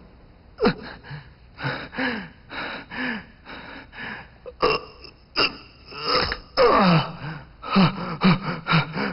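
A man gasping and grunting in pain from a dislocated shoulder: a string of short cries and breaths, many falling in pitch, spread through the whole stretch.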